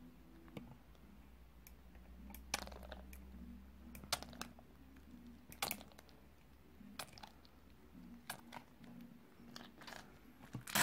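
Faint, scattered clicks and crackles of a small plastic Brain Licker sour-liquid candy bottle being squeezed and worked at by hand to force the liquid out, over a faint low hum.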